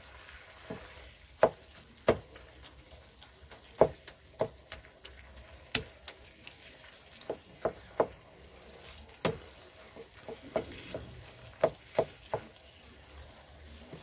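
Wooden spoon stirring and pressing thick lauki and chana dal curry in a non-stick frying pan. It makes irregular knocks and scrapes against the pan, about one or two a second, over a faint sizzle from the cooking food.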